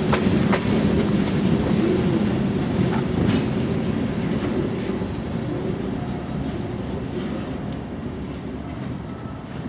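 Freight train's last cars, covered hoppers, rolling past: steel wheels rumble and click over the rail joints. The sound fades steadily as the train moves away.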